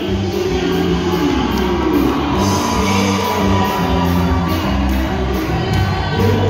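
Music with a steady bass line and a sung melody, with a crowd shouting and cheering faintly underneath.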